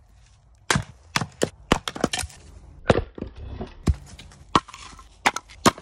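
Firewood being chopped and split with an axe: a series of sharp wooden knocks and cracks, irregularly spaced and some in quick pairs.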